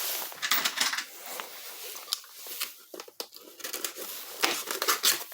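Cardboard box and packaging being opened and handled by hand to get at a battery: irregular rustling, crinkling and scraping with a few light clicks.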